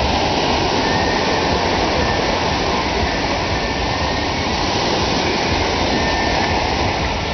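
Surf breaking on a sandy beach, a steady loud rushing noise, with a heavy low rumble of wind on the microphone.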